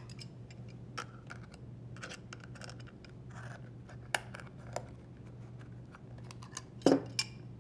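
Pliers squeezing and working a spring tension clamp off the rubber end of a washer drain bellow hose: scattered small metallic clicks and scrapes, with a couple of louder knocks about seven seconds in.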